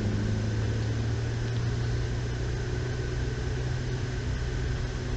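Ferrari F8 Tributo's 3.9-litre twin-turbo V8 heard from inside the cabin, holding a steady, low engine note under a constant hiss of road noise.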